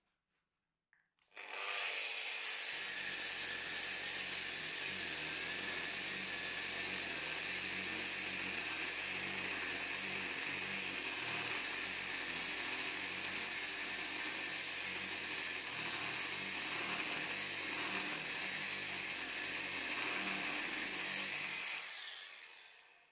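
Angle grinder fitted with a wood-carving attachment, switched on about a second in and run steadily against a block of wood, grinding out a shallow hollow. Near the end it is switched off and spins down.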